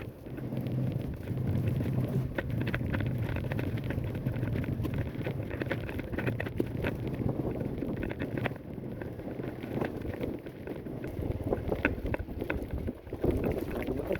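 Wind buffeting the microphone, with a low steady hum for the first half or so and scattered light knocks.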